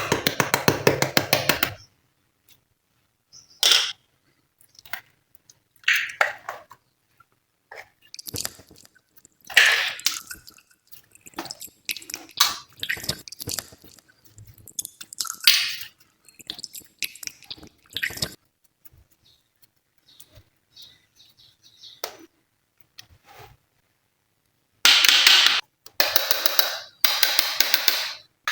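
Glossy slime being squished and stretched by hand, making sticky wet clicks and pops in short bursts with quiet gaps between. A dense run of rapid crackling clicks comes at the start and again near the end.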